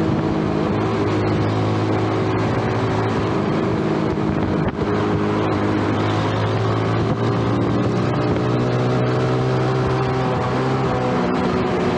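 Yamaha underbone motorcycle's single-cylinder engine running at a steady cruise, heard from the rider's seat, its note shifting only slightly in pitch, over a steady rush of wind and road noise.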